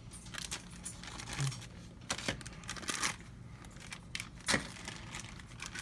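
Clear plastic bag around a small kids' meal toy crinkling as it is handled: irregular crackles, with a sharper snap a little past halfway.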